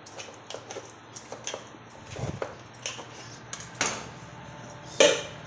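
Spatula scraping and clicking against the inside wall of a metal cake tin as it is run around the rim to loosen a baked sponge for turning out. A run of light, irregular ticks, with a sharper knock near the end.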